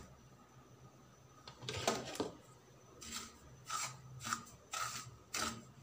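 Wooden spatula stirring and scraping dry semolina around a pan, in short strokes that start about a second and a half in and repeat roughly every half second to second. The semolina is being dry-roasted over a low flame.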